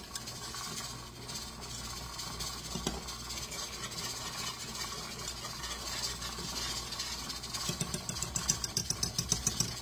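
A steady low hum throughout. Near the end, a wire whisk stirs berry pie filling in a metal stockpot, clicking and scraping against the pot about five times a second.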